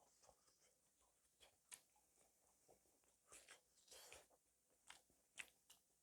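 Faint close-miked eating sounds: soft chewing and wet mouth clicks coming irregularly, with a few sharper smacks, the sharpest about five and a half seconds in.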